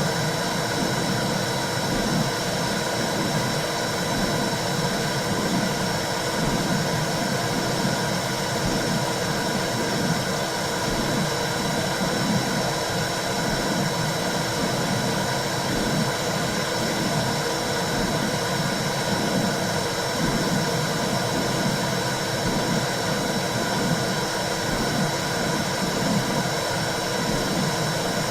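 Womb-sound track for soothing a baby: a steady whooshing noise with a regular low pulse running through it, like blood flow and heartbeat heard from inside the womb.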